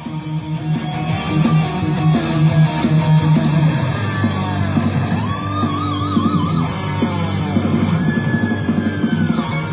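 Heavy metal music with electric guitars, with no vocals. A wavering lead line comes in around the middle.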